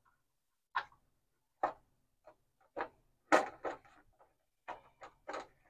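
Irregular light knocks and taps, about ten in all, as a carbon fibre cooling plate is shifted and pressed against a car's radiator core support while being test-fitted; the loudest knock comes a little past halfway.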